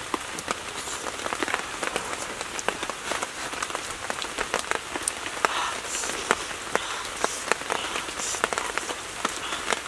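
Close-up eating sounds: chewing and wet mouth clicks as fish and turtle meat are eaten by hand, heard as many irregular sharp clicks over a soft hiss.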